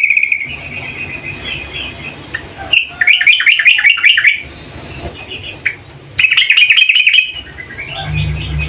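Yellow-vented bulbul (trucukan) giving quick, bubbly chattering calls: three loud bursts, each about a second long, with softer chatter between. The call is given as a female's call to a male. A low rumble comes in near the end.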